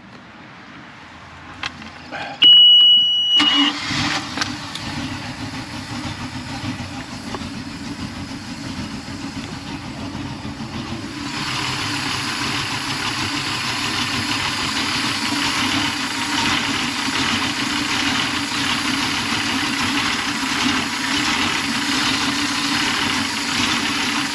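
A loud, high, steady beep of the helm warning buzzer sounds for about a second at key-on. Then the Mercruiser 5.0L V8 stern-drive engine starts and settles into a steady idle, running a newly installed serpentine belt as a test. The engine gets louder about eleven seconds in, heard up close at the engine.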